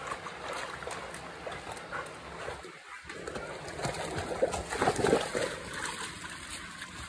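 Two dogs splashing and scrambling through shallow mud and water as they play, with the splashing loudest around four to five seconds in.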